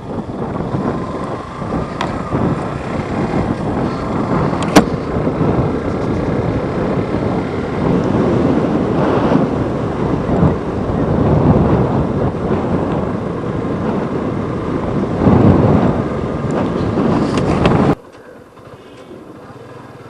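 Riding noise from a Yamaha FZ motorcycle on the move: wind buffeting the microphone over the running engine. It drops away suddenly near the end.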